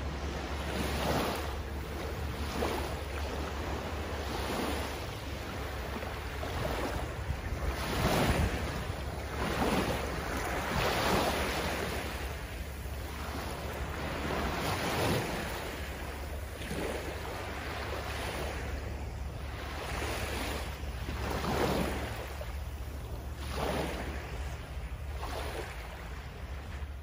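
Small waves lapping and washing up the shore of a sandy beach, each wash swelling and fading every couple of seconds, over a steady low rumble of wind on the microphone.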